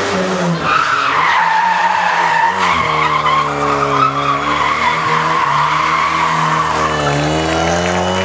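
Rally hatchback sliding through a corner: a long, wavering tyre squeal over the engine held at steady revs, the squeal fading and the revs rising near the end.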